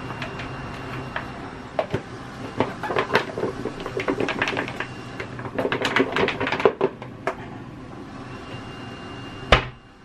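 Raw chicken feet dusted with corn flour being shaken in a lidded plastic bowl to coat them: a run of rattling knocks, then a single loud thump near the end.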